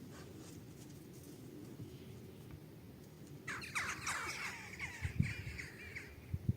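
A burst of harsh, rapid bird calls, crow-like caws, starts about halfway through over a steady low rumble, with a few low thumps near the end.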